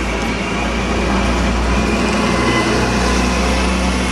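Alexander Dennis Enviro400 double-decker bus driving past close by, its diesel engine a steady low drone over road noise.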